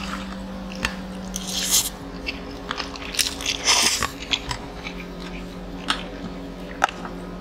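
Close-miked eating sounds: chewing and crunching of a lettuce wrap and noodles, with many small wet mouth clicks. Two louder crunching bursts come about a second and a half in and near four seconds in.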